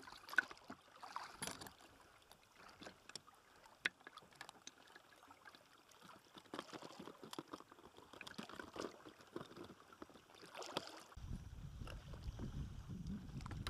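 Quiet water splashes and trickles with small knocks and clicks of handling as a caught largemouth bass is held and unhooked in a float tube. From about 11 seconds in, a steady low wind rumble on the microphone takes over.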